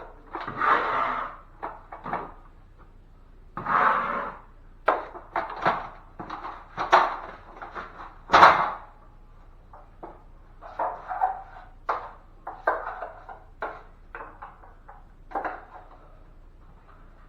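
Drywall knife scraping joint compound along a ceiling tape seam in repeated short strokes, with a sharp tap about eight seconds in.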